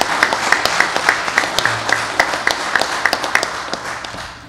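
A small audience applauding, with one close pair of hands clapping in a steady beat of about three to four claps a second. The applause dies away near the end.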